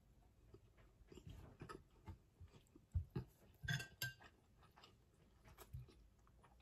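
Faint, close-up eating noises with a couple of sharp clinks of a metal spoon against a glass soup bowl about four seconds in.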